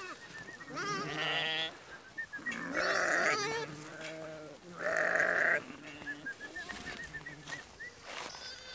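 A flock of small livestock bleating: a string of calls with a wavering pitch, one after another and sometimes overlapping, the loudest about three and five seconds in, with short high chirps between them.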